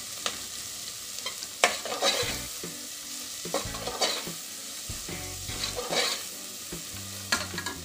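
Onions, curry leaves and turmeric sizzling in hot oil in a pressure cooker while a metal spatula stirs them, scraping and knocking against the pot several times.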